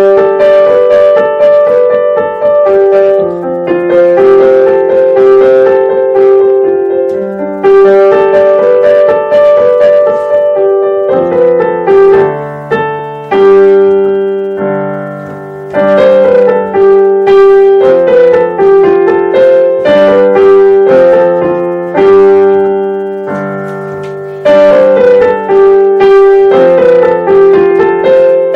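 Digital piano played slowly, with the sustain pedal holding notes so they ring into one another: a calm melody over repeating low notes. It eases off twice, about halfway through and again later.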